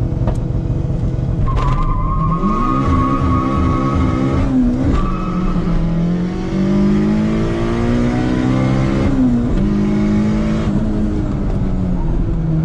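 Car engine accelerating hard, the revs climbing and dropping sharply twice as it shifts up through the gears. A high whine rides over the engine for the first few seconds.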